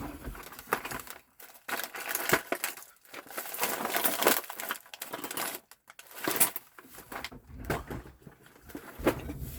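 Irregular clattering, scraping and rustling of hand tools and parts being handled, with several sharp louder knocks.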